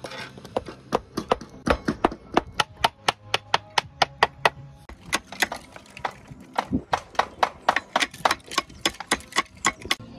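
Slater's hammer driving copper nails into roofing slates: a quick run of sharp taps, about three or four a second, with a short break about halfway.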